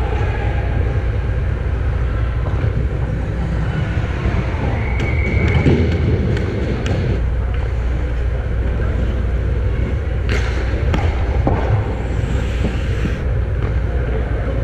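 Ice hockey play from behind the net: a steady low rumble of rink noise with skate scrapes and a few sharp clacks of stick and puck, the loudest about ten seconds in and again a second later.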